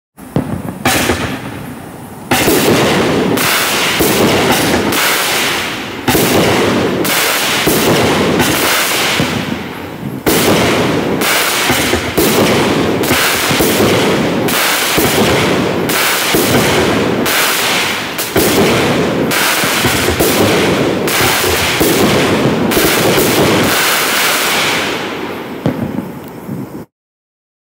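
Black Cat Pro 200, a 16-shot consumer fireworks cake, firing shot after shot: a dense run of bangs and crackling that swells in waves every few seconds, then stops abruptly near the end.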